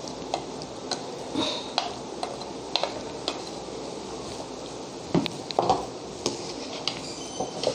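A spoon scraping and tapping thick ground masala paste out of a steel mixer-grinder jar into a pan of raw chicken pieces, giving a scattering of short clicks and knocks over a steady low hiss.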